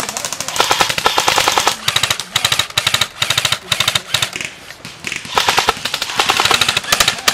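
Airsoft rifles firing in rapid full-auto bursts, a fast stream of sharp clacks that stops and starts several times, with a lull a little past the middle.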